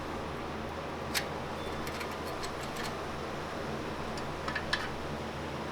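A few light clicks from exhaust parts being handled: one about a second in, and two or three close together near the end. Under them runs a steady hum of room noise.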